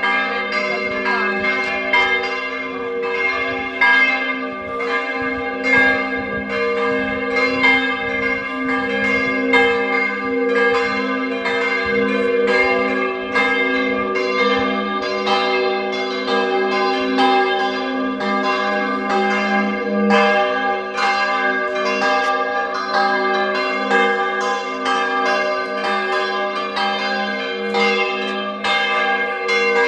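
Church bells ringing, one stroke after another at about two a second, their tones overlapping and ringing on.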